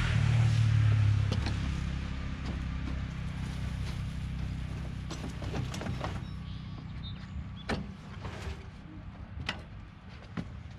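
Wheelbarrow being wheeled up a wooden plank ramp and tipped into a raised bed, with a low rumble loudest in the first couple of seconds, then compost sliding out of the tub with scattered knocks and scrapes.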